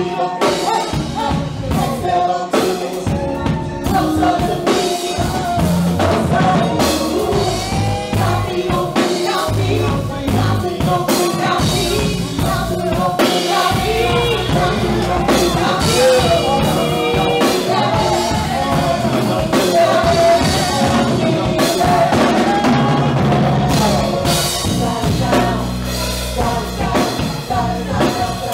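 Live band performance: several singers singing together into microphones over a drum kit.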